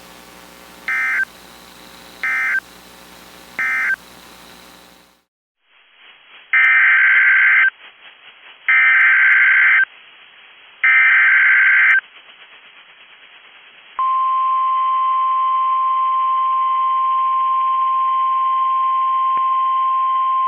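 NOAA Weather Radio emergency alert tones. First come three short bursts of SAME data, the end-of-message code closing the previous statement. Then come three loud one-second bursts of SAME header data announcing a new severe thunderstorm warning, and about fourteen seconds in the steady 1050 Hz warning alarm tone starts and holds.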